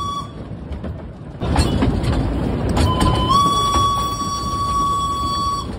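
Steam locomotive B 5112's whistle: one blast ending just after the start, then, over the running noise of the moving locomotive, a second long blast about three seconds in that starts slightly low, steps up in pitch and holds steady for over two seconds.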